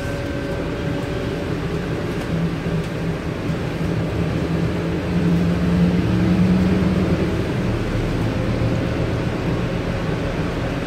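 Scania N230UD double-decker bus's five-cylinder diesel engine running with road rumble, heard from the upper deck as a steady low drone. It grows louder for a couple of seconds about halfway through, then eases off.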